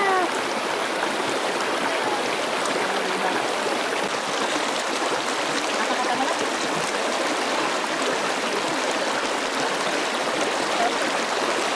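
Shallow, rocky river water rushing and burbling steadily over stones.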